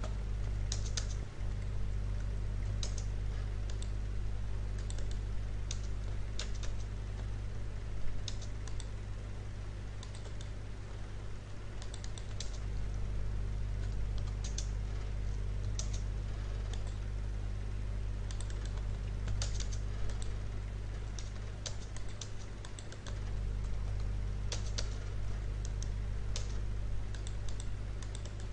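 Computer keyboard keys clicking irregularly as commands are typed, over a steady low hum.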